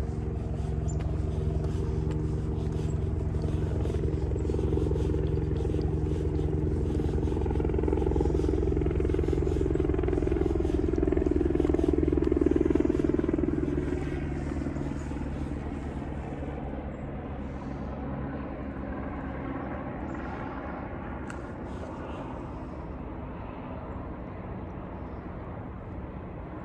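A motor vehicle's engine running steadily, growing louder to a peak about halfway through and then fading as it passes by.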